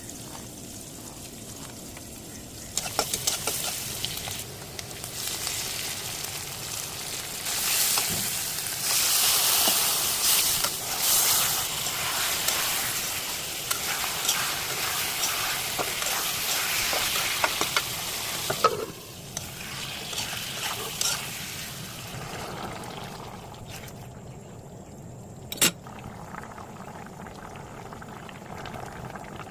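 Curry sizzling in a hot pan while it is stirred, with scattered clicks of the utensil. The sizzle starts suddenly about three seconds in, is loudest in the middle, and dies down to a quieter hiss for the last third, with one sharp knock near the end.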